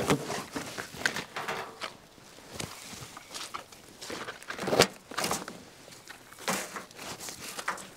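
Rustling and scraping as the tar-paper winter wrap and twine on a pallet of packed beehives are handled, in irregular bursts, with a louder scrape about five seconds in.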